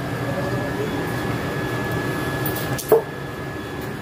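Dough being kneaded by hand in a steel bowl over a steady hum, with one sharp knock just under three seconds in.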